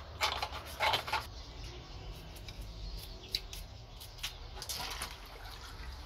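Quiet, irregular scrubbing and handling sounds with a little water, as a plastic washing-machine detergent drawer is brushed with a toothbrush and a wet cloth is wrung out over a bowl.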